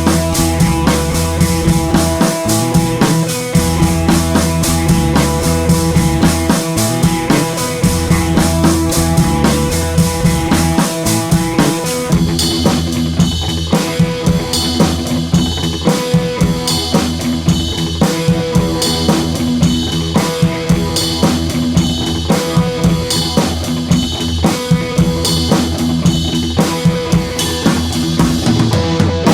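Background music: an instrumental track with a drum kit keeping a steady beat, changing to a sparser arrangement about twelve seconds in.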